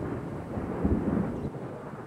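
Thunder rumbling, a low roll that swells about a second in and dies down in the second half.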